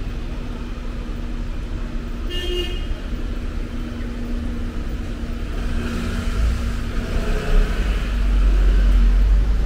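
City street traffic: vehicle engines running with a steady low hum, and a short horn toot about two seconds in. A heavier engine rumble swells near the end as a vehicle passes close by.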